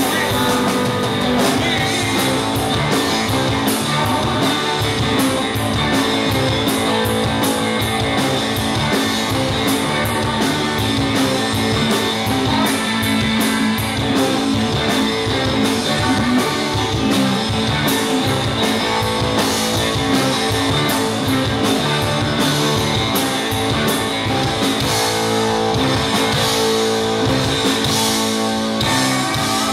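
Rock band playing live: electric guitars, bass guitar and drum kit, with a steady beat of drum and cymbal hits.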